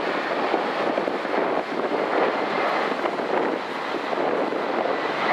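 Boeing 747-400ER's four General Electric CF6-80C2 turbofans at takeoff thrust, a steady jet noise as the airliner rolls down the runway and lifts off, growing a little louder near the end. Wind buffets the microphone.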